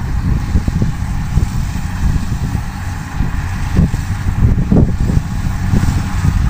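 An engine running steadily with a low hum, under heavy gusty wind buffeting on the microphone.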